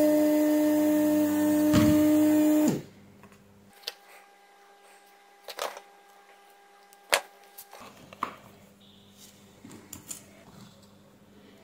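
Handheld hot-air rework tool blowing: a steady fan hum over rushing air, which cuts off abruptly about three seconds in. After that come a few sharp clicks of side cutters snipping wire, the loudest one near the middle.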